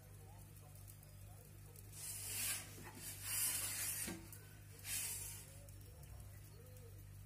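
Perforated metal pizza peel scraping across the stone floor of an Ooni Koda 16 oven in three short strokes as it slides under the pizza and turns it, with a light knock about four seconds in. A steady low hum runs underneath.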